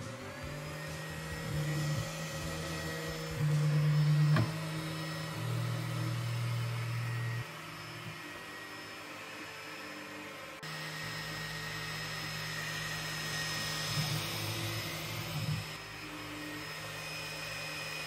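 TwoTrees SK1 CoreXY 3D printer's stepper motors shaking the toolhead during its input-shaper (vibration) calibration: a steady mechanical hum that changes pitch and loudness in steps, loudest about four seconds in, with a faint high whine above it.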